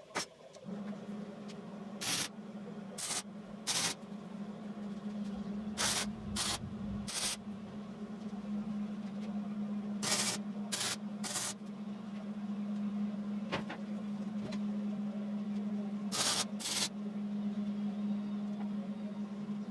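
MIG welder laying short tack welds: about eleven brief hissing bursts, mostly in groups of two or three, over a steady hum.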